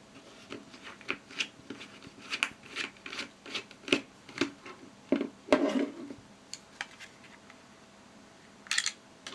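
Small screwdriver working at the screws of a Wahl 9655 hair clipper's plastic housing: irregular scraping and clicking of metal on plastic for about six seconds, then a lull and one more short scrape near the end.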